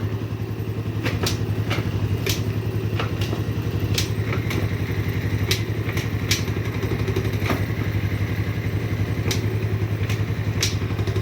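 A 110cc motorcycle engine idling steadily, with scattered sharp clicks. The bike is being run after a repair for a noise when shifting gear, and the gear-change noise is gone.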